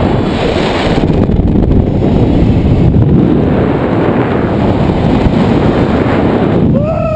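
Loud, steady wind rushing over the jumper's camera microphone during a cable-guided fall at up to 85 km/h. A short yell from the jumper comes near the end.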